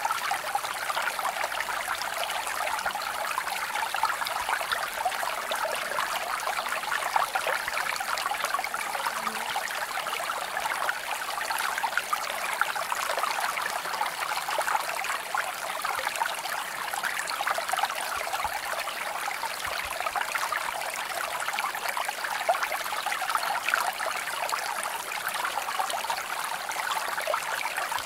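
Steady running water, like a trickling stream, going on evenly without pauses or changes.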